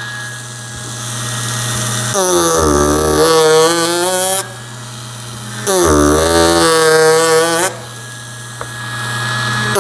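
Ryobi 4-volt cordless power carver running, its small motor humming steadily, then twice for about two seconds getting louder with a wavering pitch as the chisel is pushed into pine.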